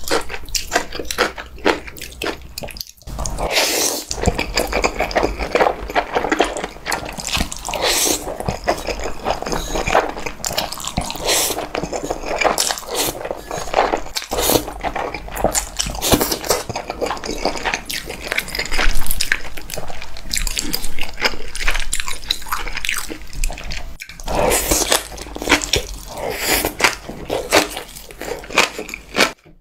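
Close-miked slurping and chewing of noodles in black bean sauce: wet sucking, smacking and a dense run of small mouth clicks.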